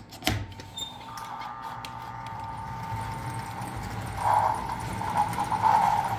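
American Flyer S gauge EP-5 model electric locomotive running along the track with its passenger cars: a click just after the start, then a steady motor whine and rolling-wheel noise that grows louder as the train comes past, with louder pulses in the second half.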